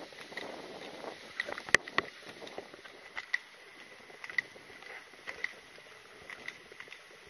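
Light clicks and clinks of carried gear jostling in step with a person's walking stride, recurring about once a second, with one sharper knock about two seconds in.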